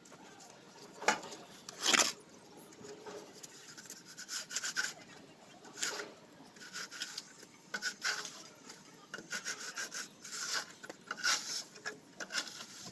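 A plastering tool scraping and rubbing over cement plaster in short, irregular strokes, the two loudest about one and two seconds in.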